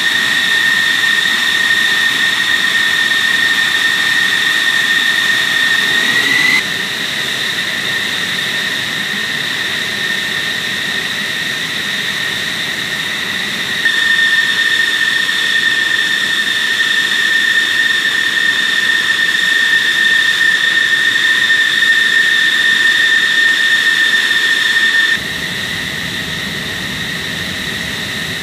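F-16 Fighting Falcon's jet engine idling on the ground: a steady high-pitched whine over a rushing hiss. The loudness steps down, up, then down again a few times.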